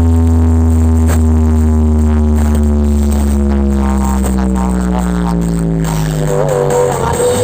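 A long, deep electronic bass tone played through a large sound system of 32 subwoofer boxes, sliding slowly down in pitch. It ends near the end, when music with a melody takes over.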